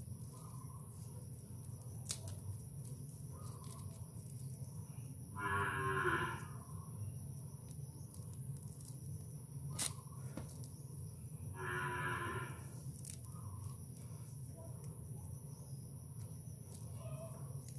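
An animal calling twice, each call about a second long and a few seconds apart, over a steady low hum, with a couple of sharp clicks between the calls.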